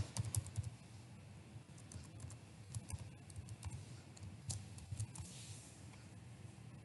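Faint computer keyboard typing: an irregular run of soft keystrokes as a word is typed into a search box.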